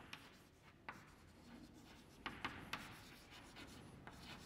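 Chalk writing on a blackboard: faint scratching of the chalk with a handful of sharper taps, several of them close together around two and a half seconds in.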